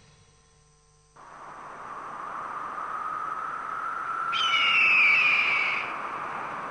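Near silence for about the first second, then a steady outdoor nature ambience hiss. About four seconds in, a loud falling bird cry lasts about a second and a half.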